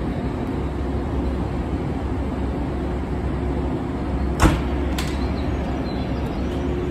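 Steady low hum of electric trains standing at a station platform, their onboard equipment running. About four and a half seconds in there is one sharp knock, and a lighter click follows half a second later.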